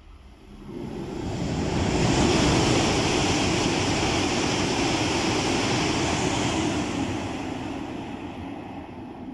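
E5 series Shinkansen passing through at speed without stopping: a rushing noise of wind and running gear builds over the first two seconds, holds loud while the cars sweep past, then fades as the train pulls away.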